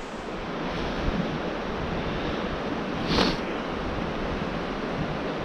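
Steady rush of the fast-flowing Madison River, with one brief louder noise about three seconds in.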